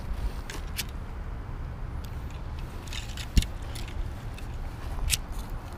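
Wind and handling rumble on a moving camera's microphone, with a few sharp clicks scattered through and one loud thump about three and a half seconds in.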